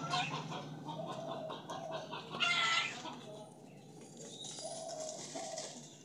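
Domestic chickens clucking in short, low calls, with one louder, higher call about two and a half seconds in.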